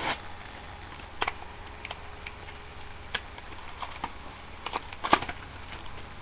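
Foil Yu-Gi-Oh! booster pack being torn open and handled, with scattered crinkles and sharp clicks, the loudest a little after five seconds in.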